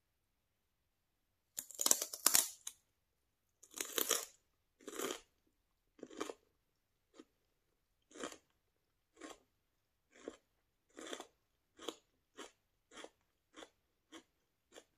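Close-miked crunching of raw celery with hummus being chewed: a few loud crunches start about a second and a half in, then the chewing settles into a steady rhythm of shorter, fainter crunches, about one to two a second.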